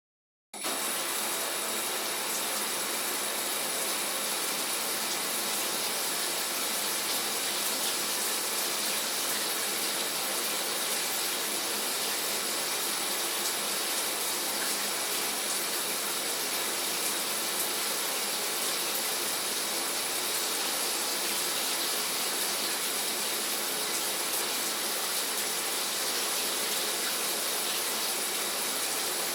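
Shower running: a steady spray of water hissing down, starting suddenly about half a second in.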